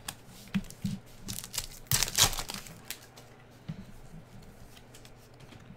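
Basketball trading cards being flipped and slid one behind another in the hands: a string of soft clicks and light rustles, with a louder crinkling rustle about two seconds in.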